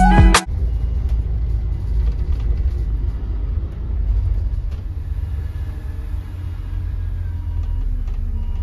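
Intro music cuts off half a second in, giving way to a steady low engine rumble.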